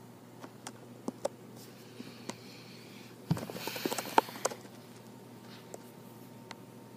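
A Shih Tzu's face and fur brushing against the phone right at the microphone: about a second of rustling and dense clicks beginning about halfway through. Scattered light clicks and taps come before it.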